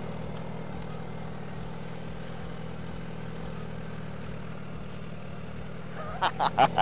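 MV Agusta Brutale 1000 RR's inline-four engine idling steadily. Several short, sharper sounds come near the end.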